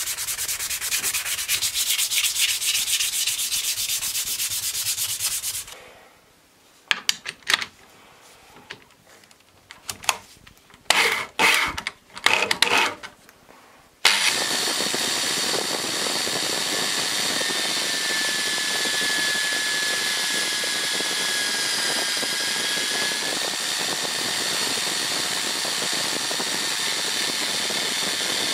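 Sandpaper rubbed back and forth by hand over an oak knife handle in quick strokes. It stops, and a few short knocks and clatters follow. From about halfway a drill press runs steadily, spinning a polishing wheel in its chuck.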